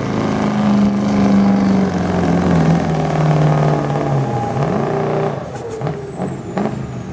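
Chevrolet Silverado's Duramax turbodiesel V8 running at full throttle while pulling a weight-transfer sled, its pitch slowly sinking as the engine is dragged down by the load. About five seconds in the driver lets off and the engine drops away, leaving a high whistle that falls in pitch and a couple of brief sharp sounds.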